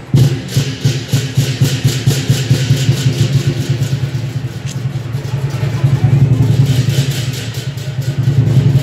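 Lion dance percussion: a big Chinese drum beaten in a rapid, steady beat with cymbals clashing on the strokes.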